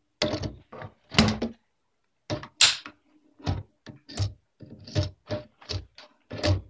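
A run of irregular knocks and thuds, a few a second, uneven in loudness.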